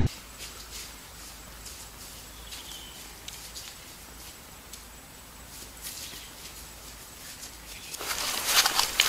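Quiet outdoor ambience with faint rustling and patter, as of movement through grass and brush, growing louder and noisier near the end.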